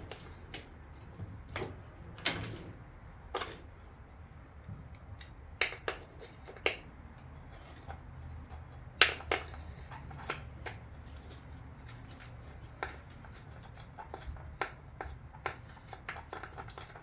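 Scattered sharp metallic clicks and clinks of hand tools working the valve cover bolts on a Chevy 350 V8, irregular and about one to a few a second, over a low hum.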